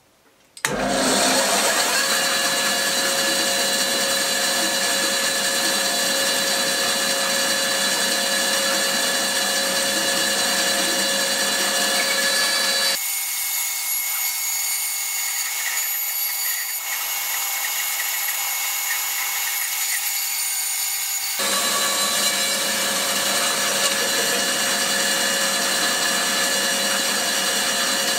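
Band saw running steadily with a whining motor and blade. For a stretch in the middle, from about 13 to 21 seconds, the sound changes while the blade cuts through a thick wooden board.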